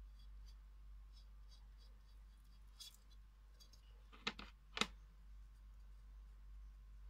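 Faint scratchy rubbing of fingertips working wax over the rough, gesso-textured surface of a glass vase, with three quick knocks a little past the middle.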